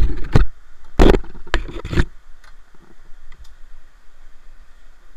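Several loud knocks and bumps from a paddle being handled in an open canoe, bunched in the first two seconds with the loudest about a second in, then only faint water noise.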